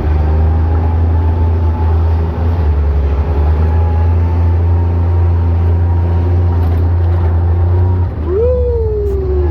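UTV engine running with a steady low drone while driving. Near the end a short whine rises sharply and then slowly falls away.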